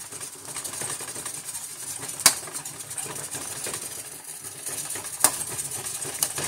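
A spatula stirring and breaking up eggs in a sizzling wok of frying vegetables and sausage, with sharp clanks of the utensil against the pan about every two to three seconds.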